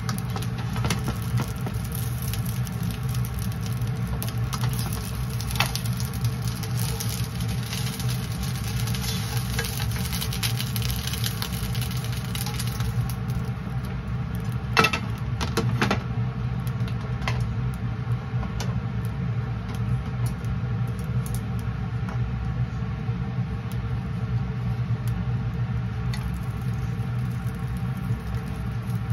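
A steady low mechanical hum like a running motor. A hiss over it for roughly the first half, and a few sharp clicks or knocks, the loudest about halfway through.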